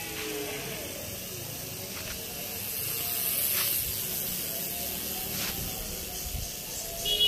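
Steady outdoor hiss of background noise on a phone microphone, with faint voices at the start and a few light clicks.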